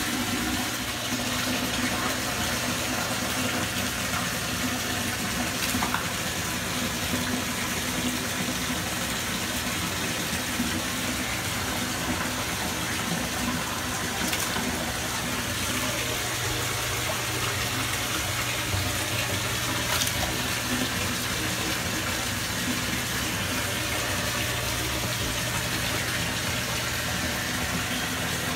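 Steady rush of water running from a bathtub tap into shallow water, with a low hum underneath and a few faint splashes or clicks.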